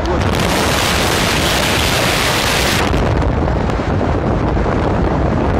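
Wind buffeting a microphone held out of a moving car's window, over a heavy low roar from the car at speed. A loud hiss rises in just after the start and cuts off sharply about three seconds in.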